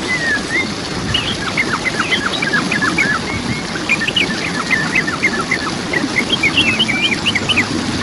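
Steady rush of waterfall water with many small birds chirping over it in quick, high, short notes.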